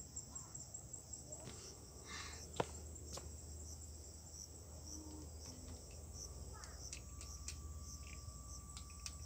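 Insects trilling steadily in a high-pitched chorus, with one sharp click about two and a half seconds in.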